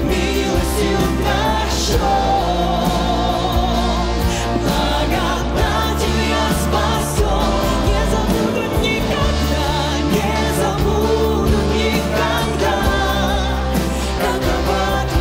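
Live church worship band playing a Russian-language worship song: several singers on microphones, with drum kit, electric and bass guitars and keyboard.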